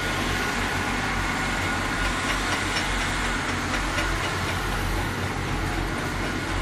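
Steady din of a ship-repair welding site: a low machine hum with crackling noise over it, as from electric arc welding and the welding machines that feed it.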